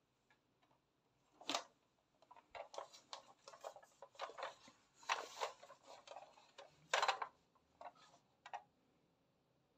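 A plastic toy bus and its cardboard window box being handled: a string of small clicks, taps and rustles, loudest about one and a half seconds in and again around seven seconds, stopping shortly before the end.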